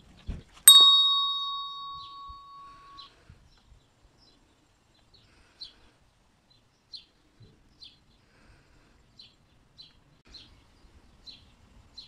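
A hand bell struck once, about half a second in, ringing clear and fading away over two to three seconds. After it, a bird gives short chirps about once a second.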